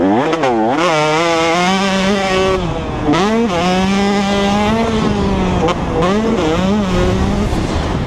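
2016 KTM 125SX single-cylinder two-stroke engine with an FMF Fatty expansion chamber and Titanium Powercore 2.1 silencer, revving hard while being ridden. The pitch wavers quickly at first and then climbs. It drops about three seconds in, climbs again and holds high. Several quick rises and falls in revs come near the end.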